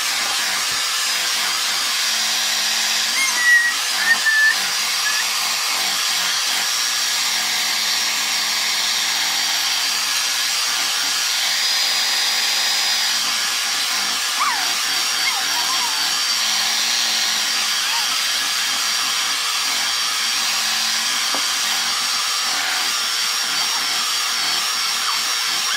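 Electric mixer running steadily at a constant speed, mixing the dry flour mixture into the oatmeal cookie dough.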